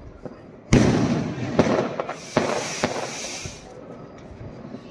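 Diwali firecrackers going off: a loud bang a little under a second in, then several sharper cracks over a crackling hiss that fades away.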